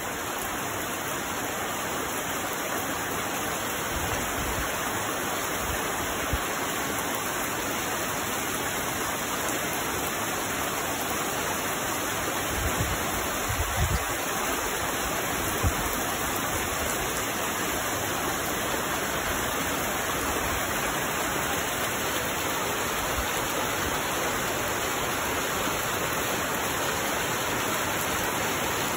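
Steady rain falling, an even hiss, with a few brief low thumps about halfway through.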